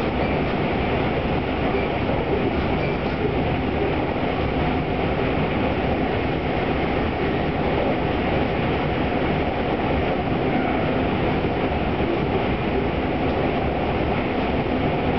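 Tobu 200 series limited-express electric train running at speed, heard from the end deck (vestibule) of a motor car: a steady, loud mix of wheel, track and motor noise that holds even throughout.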